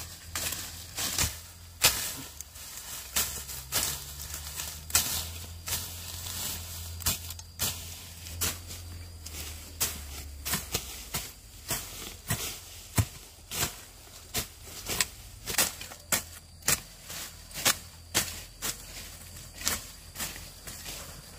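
Irregular series of sharp knocks or clicks, about one or two a second, over a low steady hum that fades about halfway through.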